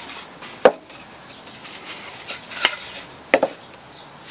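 Wooden boards being set down on a chipboard base and against each other: four sharp wooden knocks, the loudest less than a second in, and a quick pair near the end.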